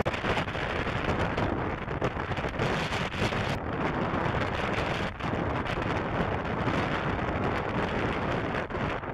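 Boeing 757 jet engines running as the airliner passes low on final approach to land, mixed with gusty wind buffeting the microphone.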